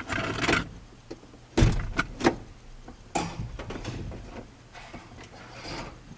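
Several separate clunks and scrapes of hands and parts being handled around a pickup truck, the loudest thump about a second and a half in, over a faint low rumble.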